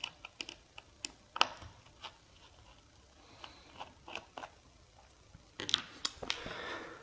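Small irregular clicks and scrapes of a Torx T6 screwdriver turning out a tiny screw from a laptop hard drive's case, with a denser run of clicks and scraping near the end.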